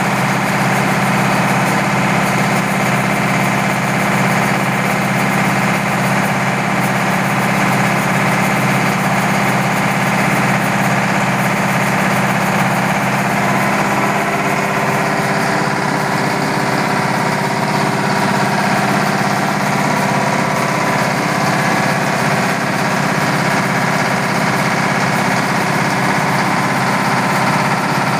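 Yanmar TF 300 single-cylinder diesel engine running steadily under load, driving a YMM 20 rice mill and its grain elevator, with the mill's machinery noise mixed in. The mix shifts about halfway through as new steady tones from the mill come in.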